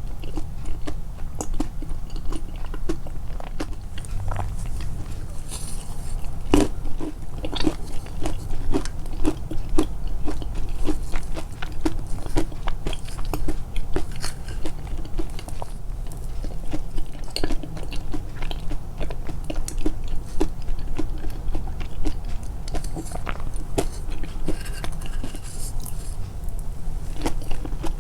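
Close-miked, amplified chewing of crunchy food: a steady run of short crisp crunches and wet mouth sounds, a few a second, with one louder crack about six and a half seconds in.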